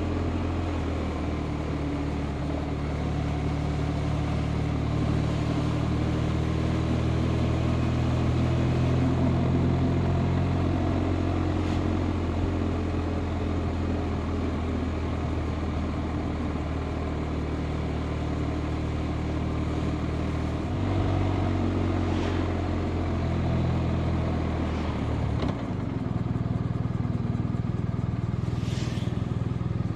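BMW R 1250 RT's boxer-twin engine running under way, with road and wind noise. The engine note shifts a few times and drops suddenly about three-quarters of the way through, as on a gear change or closing the throttle.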